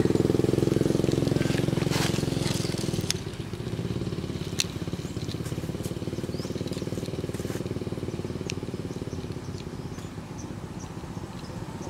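A motor vehicle's engine running with a steady low drone that fades away about three seconds in, leaving a quieter background with a few sharp clicks and short high chirps.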